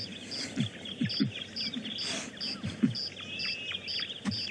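Bush ambience: birds chirping in quick falling notes over an insect calling in short, even pulses about twice a second, with a few short low falling calls.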